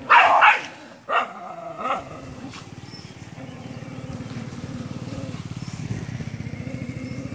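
Dogs barking in a few loud, sharp bursts during the first two seconds, then a low, steady rumble for the rest.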